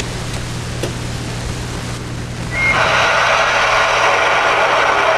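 Radio static from a ten-meter radio: a low hum and faint hiss, then about two and a half seconds in a short high beep and a jump to a louder, steady hiss of receiver noise.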